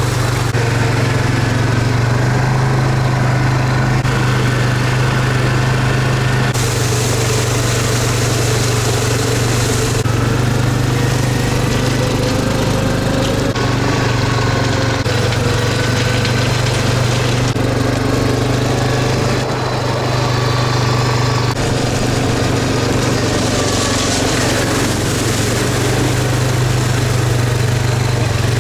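Car engine running with a steady low drone.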